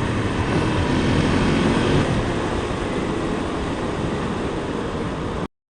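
Honda CRF250L single-cylinder engine running under way, with steady wind rush, heard through a microphone in the helmet's mouthpiece. The sound cuts off abruptly near the end.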